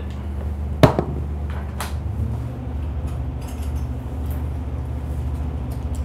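Horizontal directional drilling rig's engine and hydraulics running with a steady low hum, heard from inside the operator's cab. A sharp click comes about a second in. About two seconds in the hum thickens and gets louder as the rig takes up load to start reaming.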